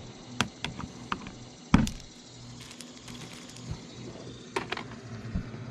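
Sharp plastic clicks and knocks from nylon push-pin retainers being pried out of a car's plastic bumper and wheel-well liner with a small tool. There is a cluster of clicks in the first second, one much louder thump about two seconds in, and two more clicks near the end, over a steady low hum.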